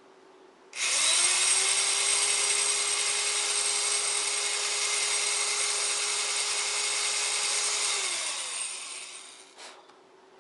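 Electric drill with a 5/32-inch bit spinning up about a second in and running steadily as it bores out a bolt hole in plastic to a larger size, then winding down near the end, followed by a short click.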